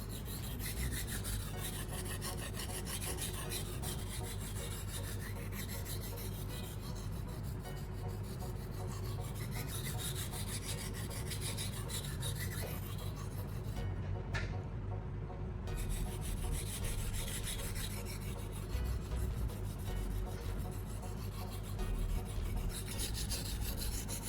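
Steel knife blade drawn back and forth across a wet sharpening stone coated in baking-soda slurry: a steady, gritty scraping and rasping. The scraping breaks off briefly about two-thirds of the way through.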